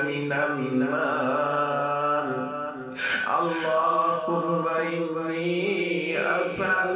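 A man's voice chanting an Arabic dua in slow, melodic recitation, holding long drawn-out notes, with a new phrase beginning about three seconds in.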